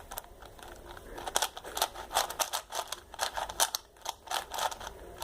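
A new 5x5 puzzle cube being turned by hand: its plastic layers clicking in quick, irregular twists.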